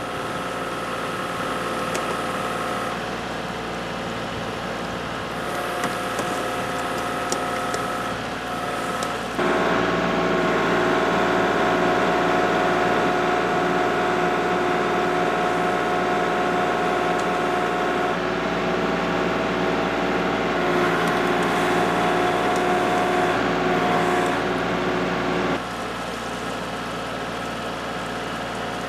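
Kubota L3301 tractor's three-cylinder diesel engine running steadily. It gets louder about a third of the way in and drops back near the end. A few faint clicks are heard early on.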